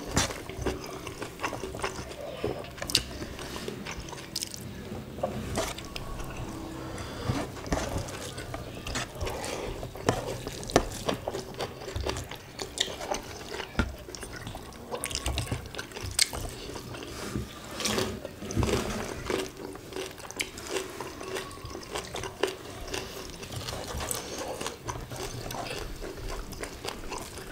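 Two people eating rice by hand: wet chewing and lip smacks, with the squelch of rice and gravy being squeezed between fingers, making many small irregular clicks.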